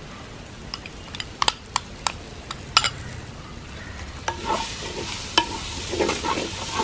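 A few sharp clicks as a spoon knocks ground masala paste out of a bowl into the pot. From about four seconds in, a wooden spatula stirs and scrapes in a clay cooking pot, over the sizzle of shallots and curry leaves frying in coconut oil.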